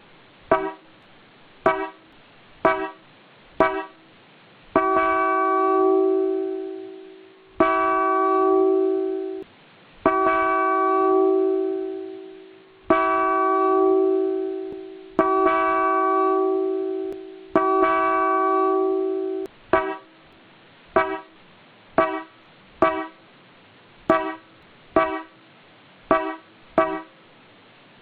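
Mitsuba Dolce II electronic (transistor) horn sounding: a string of short toots about a second apart, then six long blasts of two to three seconds each that taper off, then more short toots. Each sounds as one steady, full, musical tone.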